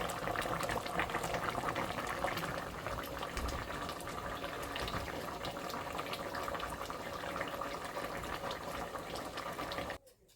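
A pot of cow foot stew bubbling at a simmer: a steady bubbling hiss dotted with small pops. It cuts off suddenly near the end.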